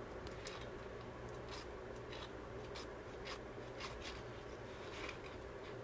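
Faint room tone with a low steady hum and soft scratchy ticks about every half second.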